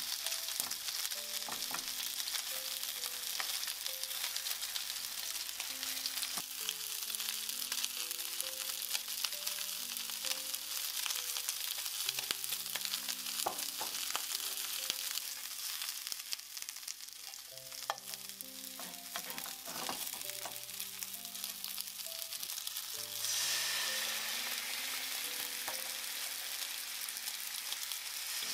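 Pork belly rolls wrapped around pea shoots and mochi sizzling in oil in a frying pan, with scattered small pops of spitting fat. The sizzle grows louder for the last few seconds.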